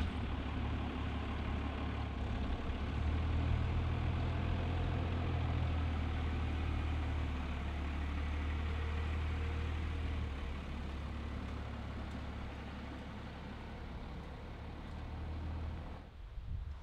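Engine idling steadily with a low, even hum, easing off slightly about ten seconds in.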